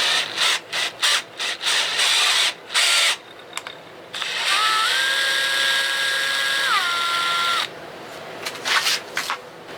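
Electric drill cutting into the outboard's steering bracket at the broken grease-fitting hole, worked slowly in and out. It runs in a string of short bursts, then one longer run whose whine rises a little and drops as it stops.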